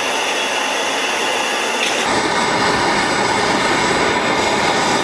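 Loud, steady rushing mechanical noise that turns deeper about two seconds in.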